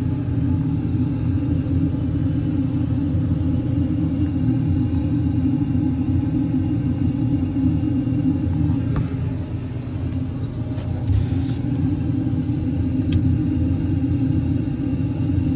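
Steady low machinery rumble and hum, with a few faint clicks.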